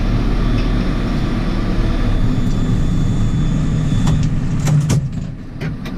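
JCB 4CX backhoe loader's diesel engine running steadily, with a few sharp clicks or knocks near the end.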